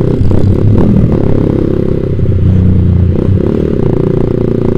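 Yamaha Vixion's single-cylinder four-stroke engine running through a Proliner TR1 short aftermarket silencer on the move. The exhaust note shifts with the throttle, settling lower in the middle and picking up again a little after three seconds.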